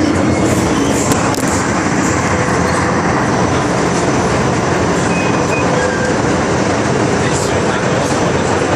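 MTR Kwun Tong line metro train running between stations, heard inside the carriage: a steady loud rumble of wheels on rails and traction motors.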